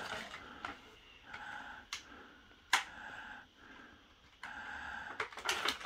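Quiet handling of action-figure packaging being cut open: soft plastic rustling with a few sharp clicks, the loudest one near the middle.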